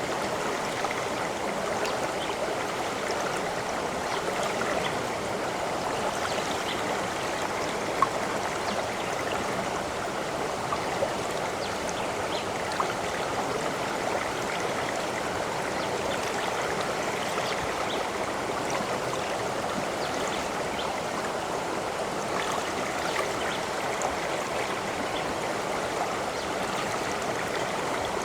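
Running water of a stream, a steady, even rush with a few faint drip-like plinks now and then.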